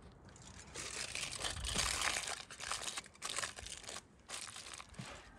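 Coarse salt crunching and crackling under a hand as it is pressed and packed around a whole sturgeon for a salt crust, in a few stretches with short pauses.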